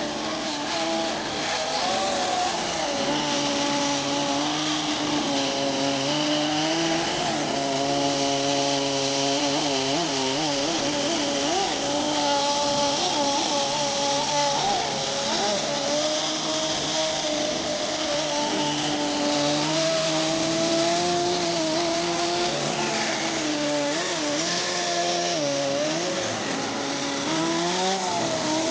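Kyosho GX-15 two-stroke nitro engine of a radio-controlled snowcat running continuously. Its pitch drifts up and down with the throttle, with quick wavering revs about ten seconds in and again near the end.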